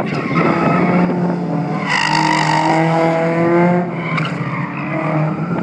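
Race car engine revving hard, its note climbing steadily for a couple of seconds before easing off about four seconds in.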